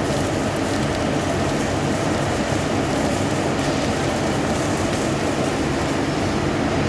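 CNC lathe running while turning a part, a steady even machine noise with a low hum and a faint hiss over it.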